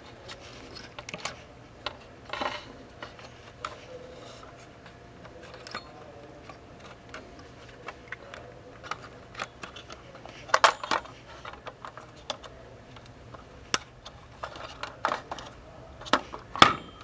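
Scattered clicks and light clatter of plastic push-pin fasteners and a motherboard being handled while the stock Intel cooler's push-pins are released. Louder clusters of clicks come about two seconds in, around ten seconds, and near the end.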